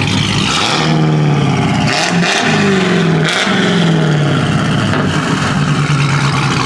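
A loud car engine revving hard. Its pitch climbs about half a second in, drops and climbs again around two seconds in, then falls away over the next couple of seconds and settles into a steady drone.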